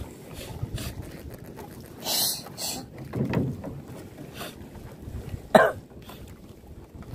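A nylon gill net being hauled and handled on a wooden outrigger boat while ponyfish are picked from the mesh, over a low rush of wind and sea. There are short hissing rustles about two seconds in and a sudden sharp knock about five and a half seconds in, the loudest sound.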